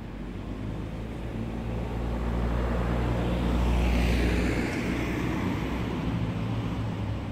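A motor vehicle with a low engine hum passing by off to the side, swelling to its loudest about four seconds in and then fading, with tyre and road hiss dropping in pitch as it goes past.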